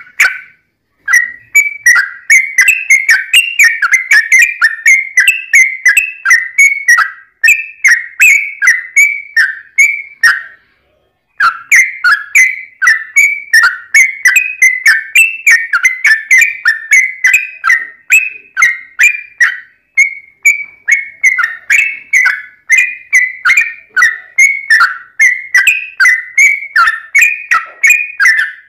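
Yellow-vented bulbul (trucukan) singing a long, loud run of short chattering notes, about three a second, with one brief pause about ten seconds in.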